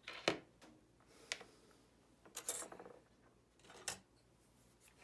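Metal lathe parts being handled on a bench: four sharp clinks and knocks about a second apart, with quieter rubbing between them.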